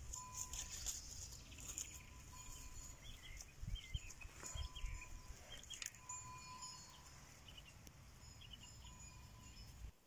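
Faint outdoor ambience: scattered short high chirps, most of them in the middle seconds, over a low rumble of wind on the microphone.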